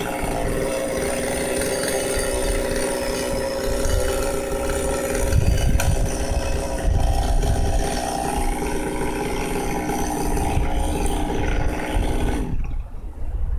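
Chainsaw engine running steadily at a fairly even pitch, then shutting off near the end.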